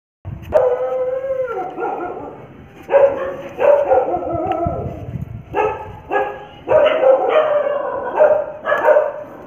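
A dog howling and yelping: one long wavering call, then a run of shorter calls.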